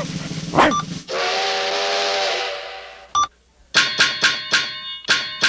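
Cartoon sound effects. A hissing, whistle-like blast with steady tones fades out, and after a click comes a quick run of ringing bell strikes, about three a second.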